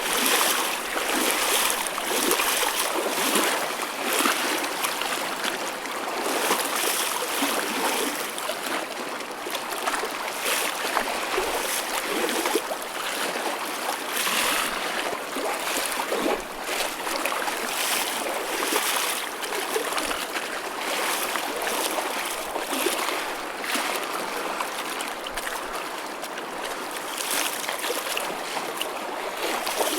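Choppy ocean waves: a continuous wash of moving water broken by frequent small splashes, with little deep rumble.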